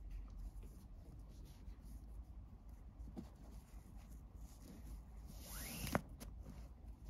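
Faint rubbing and sliding of 4 mm nylon paracord as it is wrapped and pulled through a macrame weave on a towel, with a short swish and a sharp click about six seconds in.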